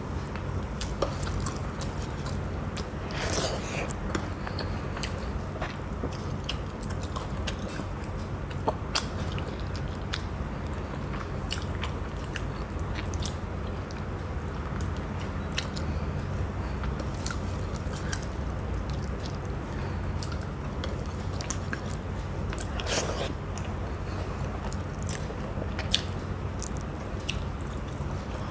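Close-up eating sounds: a person chewing and biting a meal of rice, fish curry and fried fish, with many short sharp clicks scattered throughout, over a steady low hum.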